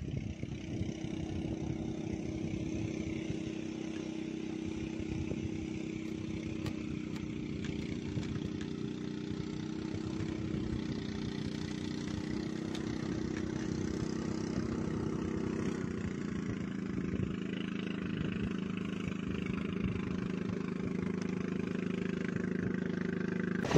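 A small engine running steadily, its pitch stepping down a little past the middle.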